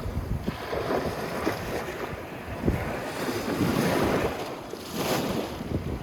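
Sea surf washing onto a sandy beach, the rush of water swelling twice, with wind buffeting the microphone.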